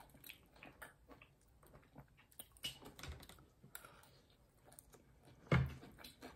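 Eating sounds: a metal fork picking at a bowl of lettuce and chicken, and chewing, heard as faint scattered small clicks. A louder knock comes about five and a half seconds in.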